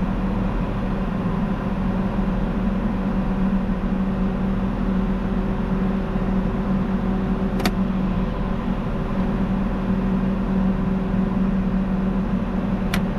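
Engine idling steadily with a constant hum, with two sharp clicks, one about halfway through and one near the end.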